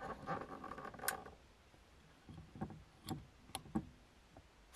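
Rustling of fabric for about a second, then a few separate light knocks and clicks as small things are handled in the confined space of a car cabin.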